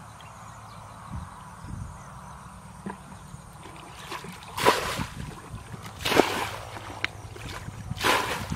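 Muddy water sloshing and splashing as a plastic bucket is scooped through a shallow ditch and tipped out, bailing the ditch. Three splashes come in the second half, about a second and a half to two seconds apart.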